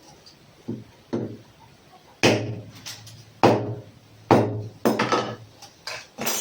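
A series of about nine sharp knocks at irregular intervals, each with a short ring, the loudest in the middle stretch.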